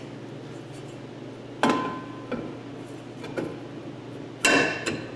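Metal clinks and ticks from hand work on a drum brake's adjuster and shoes: a sharp clink with a brief ring about a second and a half in, a few faint ticks, then a louder metallic clatter near the end.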